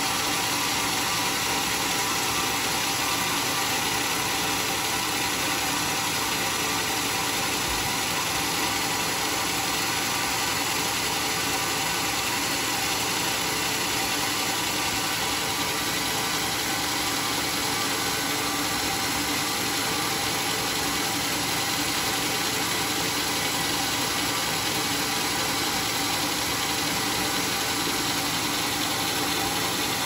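Homemade sawmill machinery running steadily: a constant mechanical hum with a layer of noise, unchanging in level throughout.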